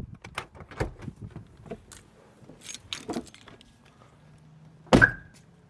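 Light clinking and rattling, then one loud knock with a short ringing tone about five seconds in.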